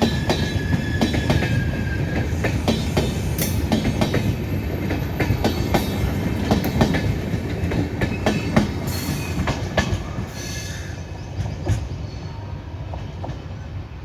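Coaches of an express passenger train passing at speed, the wheels clicking rapidly over the rail joints above a steady rumble. A faint thin squeal runs through the first couple of seconds, and the clatter fades after about ten seconds as the train draws away.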